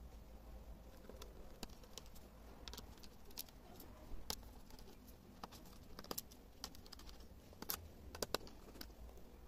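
Faint, irregular small clicks and taps of hand tools and plastic and metal parts as a laptop is taken apart.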